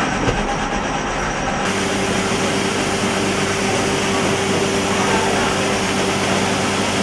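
Steady machinery hum and room noise of a book-making workshop floor; about two seconds in it changes to a steadier hum with a low, even drone.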